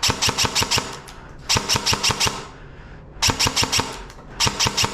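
Airsoft rifle firing on full auto: four short bursts of rapid snapping shots, each under a second long and about a second apart.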